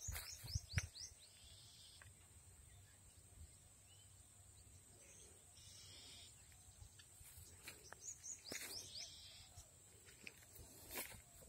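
Quiet field ambience with faint bird chirps: a quick run of short falling chirps in the first second and another around eight seconds in.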